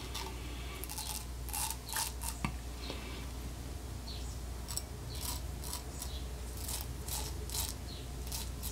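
Rockwell 6C double-edge safety razor cutting stubble on the upper lip in short, crisp scraping strokes, about two a second.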